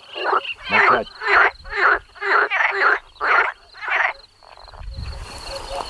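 Frogs croaking in a run of about eight loud calls, roughly two a second, that stop about four seconds in. A faint steady high-pitched whine runs underneath.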